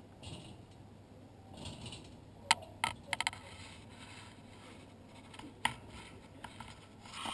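Pembroke Welsh corgi puppy bumping and scraping against the camera at close range: soft rustling, then a few sharp clicks and taps about two and a half to three and a half seconds in and once more near six seconds.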